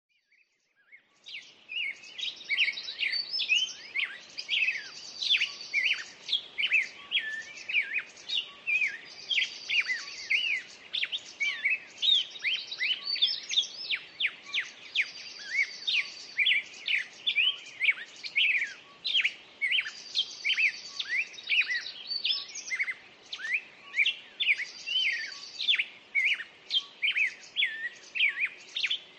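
Songbirds singing: a dense run of rapid chirps, with a buzzy trill repeated every few seconds. The song begins about a second and a half in.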